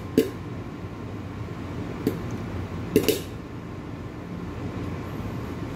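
Popcorn popping in a lidded saucepan: three scattered sharp pops, the loudest about three seconds in, the sparse late pops of a batch that is nearly done. A steady hum runs underneath.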